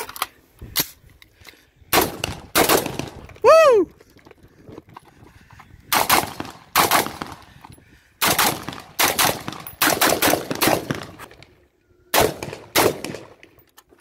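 AR-style semi-automatic rifles firing fast strings of single shots in several clusters with short pauses between. About three and a half seconds in there is one brief whine that falls steeply in pitch.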